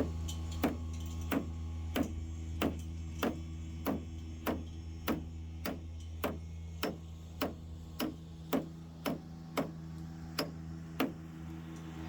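Even, regular clicking, about three clicks every two seconds, stopping near the end, over a steady low hum.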